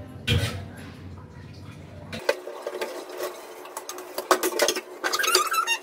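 Hand-washing stainless steel dishes: a squirt of dish soap, scrubbing, then scattered clinks and knocks of steel plates and pots that come thicker in the second half.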